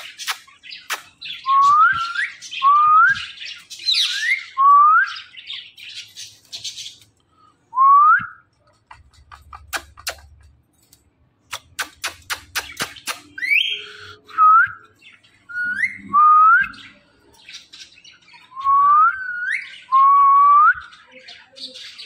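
Indian ringneck parakeet (rose-ringed parakeet) giving about ten short rising whistles, mixed with harsh raspy squawks. There are runs of sharp rapid clicks at the start and around the middle.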